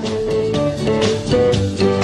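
Instrumental background music with steady held notes.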